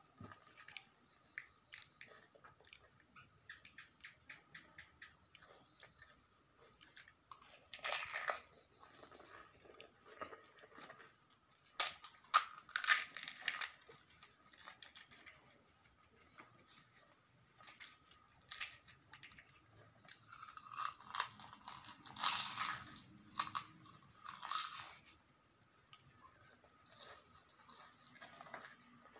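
Crisp, hollow pani puri shells cracking and crunching as they are broken open with the fingers, in scattered bursts of crackles and sharp clicks.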